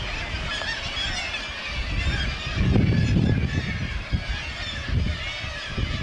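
A black-legged kittiwake colony on a sea cliff calling, many birds overlapping in a dense, continuous clamour. Low wind rumble on the microphone comes and goes beneath it, strongest about three seconds in.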